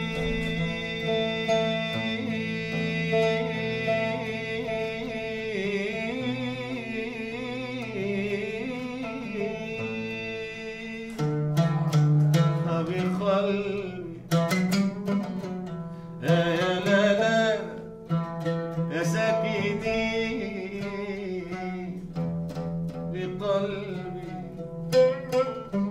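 A man singing long, wordless ornamented vowels in Arabic classical style, his held notes wavering and bending in pitch, over a plucked oud accompaniment. The voice comes in louder about eleven seconds in, with oud notes struck between its phrases.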